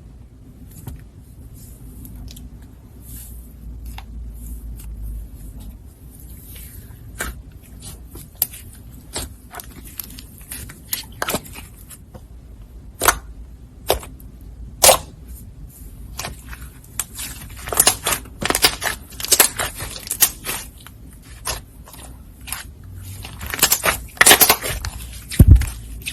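Slime being handled and squished by hand, making irregular sharp clicks, pops and crackles. These come sparsely at first and grow denser and louder in the second half.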